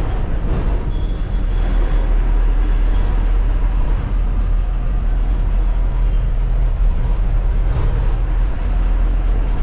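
TNSTC bus under way: engine and road noise make a steady low rumble heard inside the passenger cabin.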